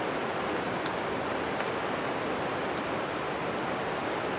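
Steady rushing of river water, an even hiss with no change in level, with a couple of faint, short ticks.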